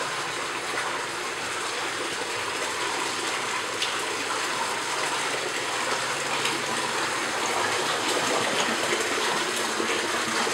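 Water pouring steadily from an aquaponics system's inlet pipe into a gravel grow bed, a continuous splashing rush of water.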